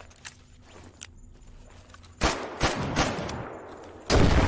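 Pistol gunshots as a sound effect: a few sharp shots in quick succession about halfway in, then another loud sudden blast near the end.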